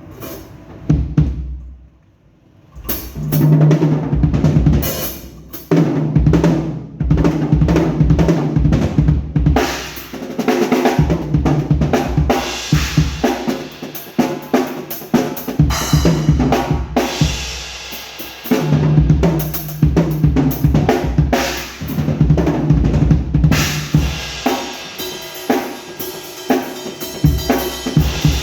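Pearl Roadshow five-piece acoustic drum kit being played: an opening hit, a short gap about two seconds in, then a continuous groove of bass drum and snare with fills, and cymbals joining from about ten seconds in.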